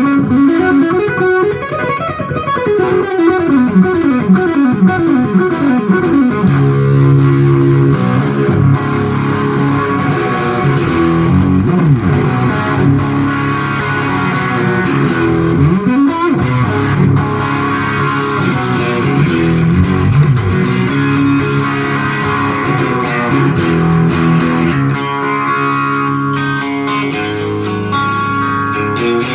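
Electric guitar played through a 1970 Dallas-Arbiter Fuzz Face fuzz pedal with TFK BC108C silicon transistors, its fuzz knob backed off just below where it starts to squeal. The playing is continuous, with notes sliding up and down the neck.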